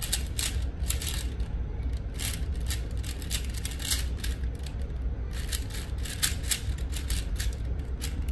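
4x4 Rubik's cube being turned quickly during a solve: irregular plastic clicks and clacks of its layers turning, several a second.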